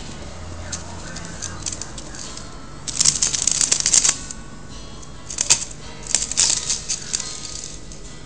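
A ferret scrabbling through a corrugated plastic vacuum hose: two bouts of rattling scratches, about three seconds in and again near six seconds, with scattered single clicks between.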